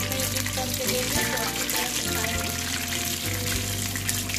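Pakoras deep-frying in hot oil in a saucepan, a steady sizzle with fine crackles as the batter fries. Background music plays over it.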